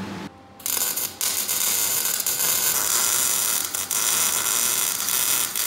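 TIG welding arc, a steady hissing buzz that starts about half a second in, as a steel roller bracket is welded in.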